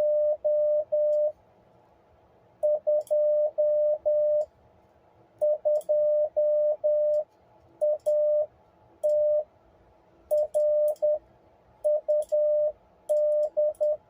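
Morse code sidetone from an ICOM IC-7300, keyed with an iambic paddle: a single mid-pitched beep switching on and off in groups of short and long elements, dits and dahs, with pauses between the groups. Faint sharp clicks come with the key strokes.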